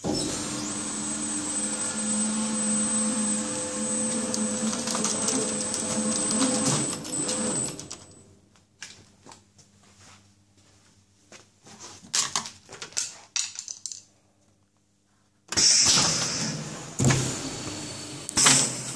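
Tray-handling conveyor machine running steadily with a high whine for about eight seconds, then stopping; scattered clicks and knocks follow. About fifteen seconds in it starts again with loud clattering and knocks as plastic trays move through it.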